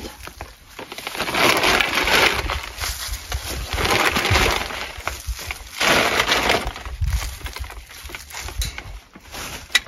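Plastic bag of autumn organo-mineral fertilizer rustling and crunching as a gloved hand scoops from it and scatters the fertilizer over dry leaves and soil. It comes in three bursts about two seconds apart.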